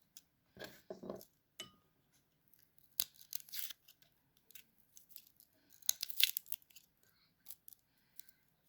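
Garlic cloves being prepared by hand: faint, irregular crackling, scraping and small clicks, loudest about three and six seconds in.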